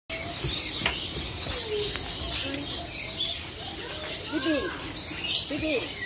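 Many small birds chirping and tweeting continuously, with a few short, lower rising-and-falling calls about four and five and a half seconds in.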